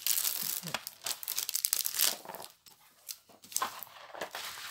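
Plastic film and packaging crinkling and rustling as a rolled diamond painting canvas is handled, loudest and densest for the first two seconds, then quieter scattered rustles and clicks.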